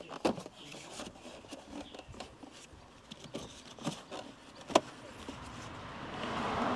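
Hard plastic cabin-filter housing trim being handled and pressed into place in the cowl: scattered plastic clicks and knocks, the sharpest about three-quarters of the way through, with a rushing noise swelling near the end.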